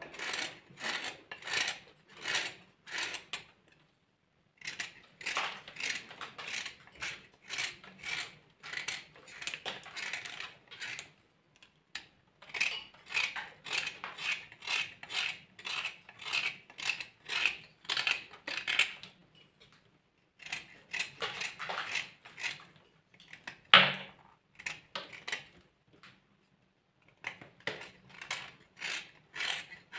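Dry clay crunching and crumbling as it is broken and crushed, in quick runs of crisp crunches, about three or four a second, with short pauses between runs and one louder sharp crack late on.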